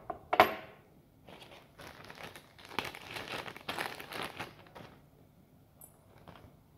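Two sharp knocks in the first half second, then packaging crinkling and rustling for a few seconds as bike parts are unwrapped, followed by a few faint taps.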